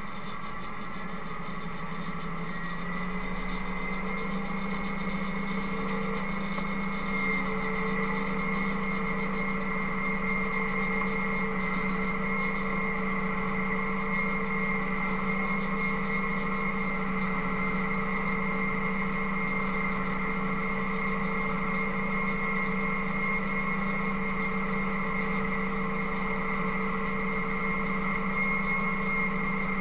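Buffalo 7700 bale processor running, shredding and unrolling a round hay bale and blowing it out the chute: a steady mechanical hum with a high whine. Its pitch and level rise a little over the first few seconds as it comes up to speed, then hold steady.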